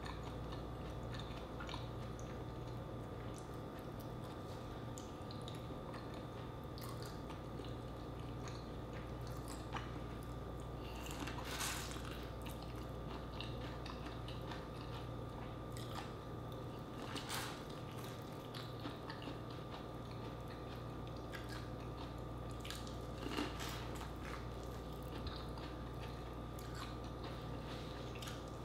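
Close-up eating sounds: biting and chewing soft, sauce-coated seafood-boil food, including corn, with wet mouth clicks and squishes. A few clicks are louder, spread through. A steady low hum runs underneath.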